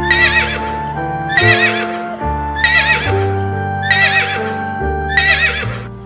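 Horse whinnying five times in short, quavering calls, evenly spaced about a second and a quarter apart, over background music with sustained notes.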